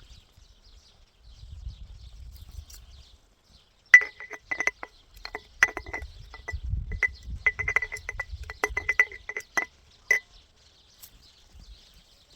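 Glass jar clinking: a quick, irregular series of light knocks on the glass, each with a short ring, starting about four seconds in and stopping about ten seconds in.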